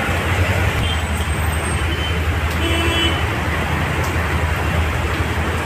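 Heavy rain pouring onto a wet street, mixed with steady road-traffic noise, and a short horn toot about halfway through.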